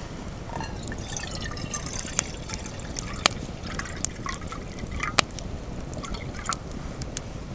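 Liquid being poured and dripping, with a scatter of sharp clicks over a steady low rumble.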